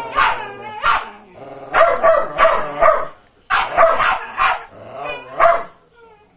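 Two whippets, an adult and a puppy, barking at each other in play. The barks come in three quick runs and stop about six seconds in.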